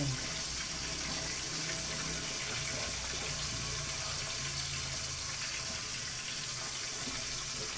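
Pot of broth boiling steadily on the stove.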